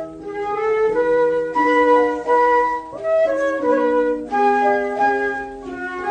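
Instrumental interlude of a children's song: a flute-like woodwind melody over accompaniment.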